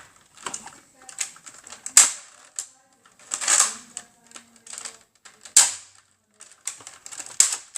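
Hard plastic clicks, knocks and rattles from Nerf blaster parts being handled and snapped together, with a few louder clacks and a short rasping slide in between.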